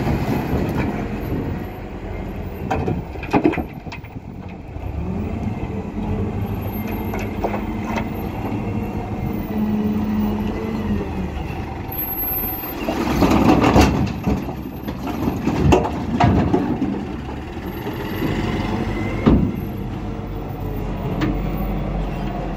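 Caterpillar wheel loader's diesel engine working steadily, its pitch held up for several seconds as it works the bucket. A little past halfway, a load of large rocks crashes into the steel body of a tipper truck in a few loud heavy bursts, with a couple of sharp knocks elsewhere.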